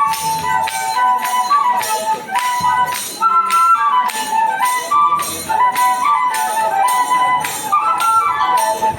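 A traditional Kenyan flute playing a quick, shifting melody over a steady jingling beat of about two to three strokes a second.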